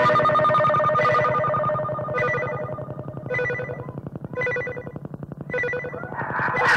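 Trilling, bell-like ringing tones on lo-fi cassette audio. A short run of changing notes gives way to rings repeating about once a second, with a brief noisy rush just before the end.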